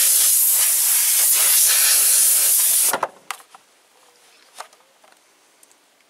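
Compressed-air blow gun on a coiled air hose blowing a loud, steady hiss of air for about three seconds, then cutting off suddenly, cooling a heat-softened plastic drain pipe so it sets. A few faint handling clicks follow.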